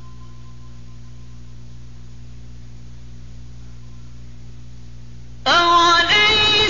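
Steady low electrical hum of an old recording during a pause in melodic Quran recitation. About five and a half seconds in, the male reciter's voice comes back in loudly on a long, ornamented, melodic note.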